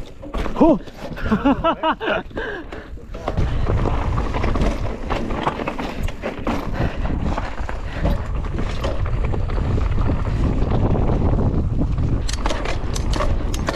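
Mountain bike descending fast on a dirt trail: wind buffeting the microphone, tyres on dirt, and the bike's chain and frame rattling over bumps, with a run of sharp clatters near the end.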